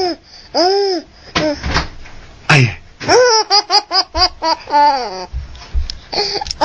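A baby laughing hard, a string of high-pitched squealing laughs with a quick run of short staccato laughs about three to four and a half seconds in.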